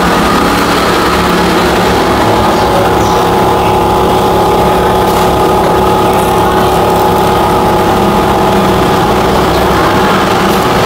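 Steady mechanical drone of running workshop machinery: a low rumble with several held tones and no change in level.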